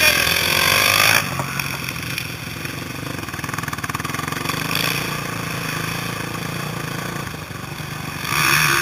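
A 450 cc four-stroke motocross bike's engine running as it is ridden, revving up hard in the first second, then running quieter and steadier at lower revs before opening up loud again near the end.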